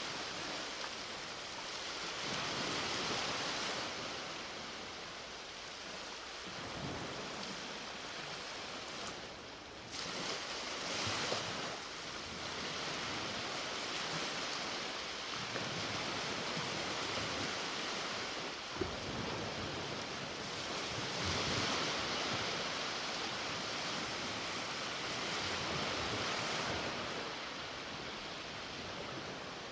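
Ocean waves breaking and washing up the shore, a continuous rushing that swells and eases every few seconds. There is a brief click a little past halfway through.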